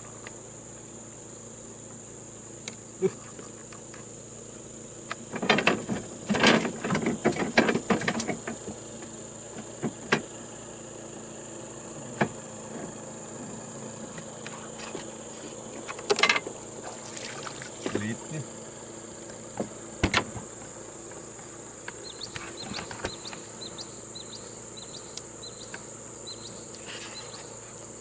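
Steady high-pitched insect drone. Over it come bursts of knocking and clattering from gear being handled in a wooden boat, about five to eight seconds in and again around sixteen and twenty seconds in, with a short run of light, evenly spaced ticks near the end.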